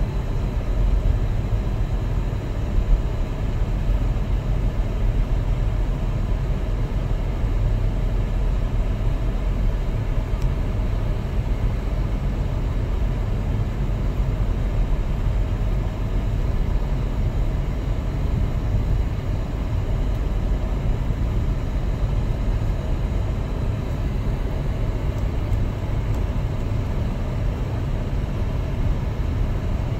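Steady low rumble of a car cruising along a paved road, its tyre and engine noise heard from inside the cabin.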